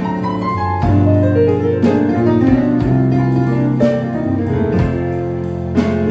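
Live blues band playing a slow instrumental passage, keyboards to the fore over organ, electric guitar and drums. A descending run of notes falls in the first two seconds, over a beat marked about once a second.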